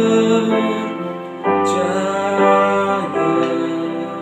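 A man singing a slow worship song, holding long notes over his own keyboard playing soft sustained piano chords. A new chord is struck about a second and a half in.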